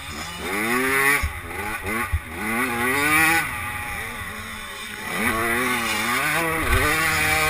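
85cc two-stroke motocross bike engine being ridden hard, its revs climbing and dropping several times as the throttle is worked through a corner and down the straight, heard from a helmet camera. A few dull knocks hit the microphone along the way.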